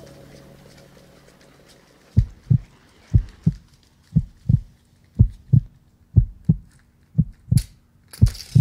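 Heartbeat sound: paired low thumps, about once a second, starting about two seconds in after a faint steady tone fades away. A brief hissing shimmer comes in near the end.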